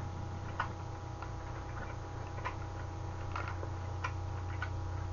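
Small plastic sauce sachet being torn open and worked by hand: a few soft, irregular clicks and crinkles over a steady low electrical hum.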